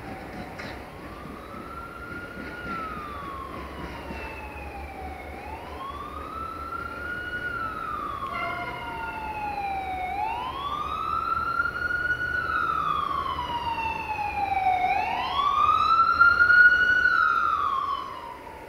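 An emergency-vehicle siren wailing, its pitch slowly rising and falling about every five seconds and growing louder, then cutting off sharply near the end.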